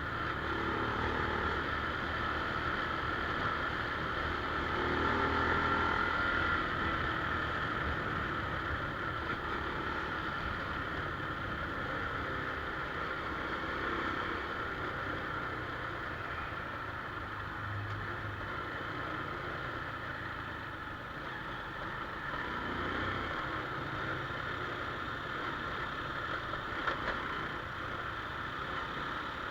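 Small motorcycle engine running steadily.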